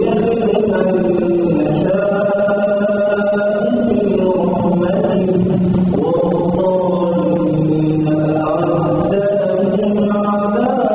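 A man's voice chanting Quranic recitation in long, melodic held notes that glide between pitches, without a break.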